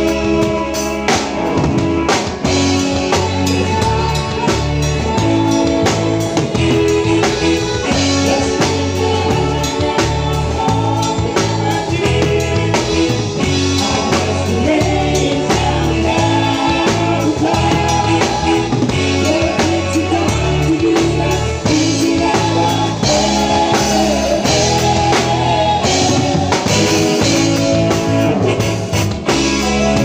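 Live band music, loud: a drum kit and a bass line with a singer's melody over them.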